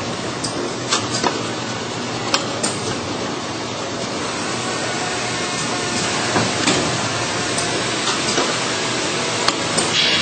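All-Fill Model 1545 multi-head piston filling machine running: a steady mechanical din with irregular sharp clicks and knocks as the filling heads cycle and plastic bottles move along the conveyor.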